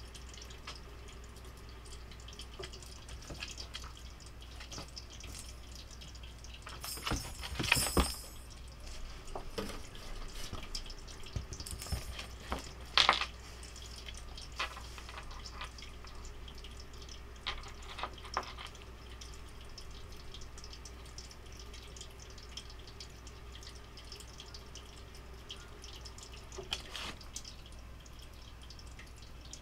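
A cat playing with a small ball on a wooden floor: scattered light taps and knocks of the ball and paws, loudest in a short cluster about a quarter of the way through and a sharp knock soon after, over a faint steady hum.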